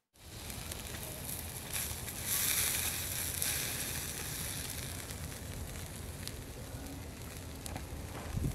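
Wood fire crackling in a Bushbox folding box stove, with a burger patty sizzling on the grill grate on top. It gets louder between about two and three and a half seconds in, with occasional sharp crackles.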